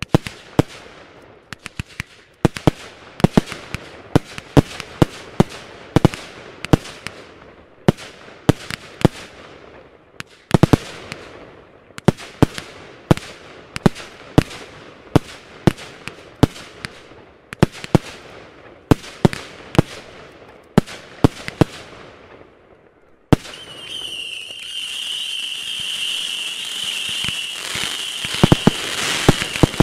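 Fireworks going off: a quick, irregular run of sharp bangs, each trailing off in echo. About 23 seconds in, a ground fountain starts up with a loud, steady hiss and a high whistle-like tone, and the bangs start again over it near the end.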